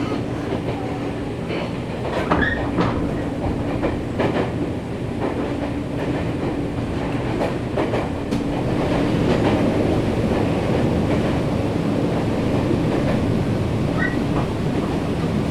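Nankai 7100-series electric train running at speed, heard from inside the passenger car: a steady rumble of wheels and traction equipment with a steady hum, rail-joint clacks, and brief wheel squeals about two seconds in and near the end.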